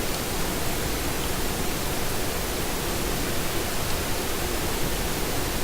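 Steady, even hiss of background noise with a faint low hum, unchanging throughout.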